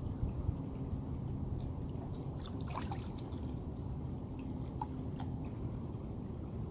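Steady low rushing of a fast, rain-swollen river, with a few faint short ticks a couple of seconds in and again about five seconds in.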